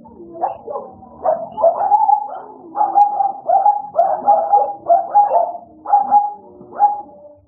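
Several caged dogs barking and yelping, a quick run of high-pitched barks about two a second, excited at feeding time.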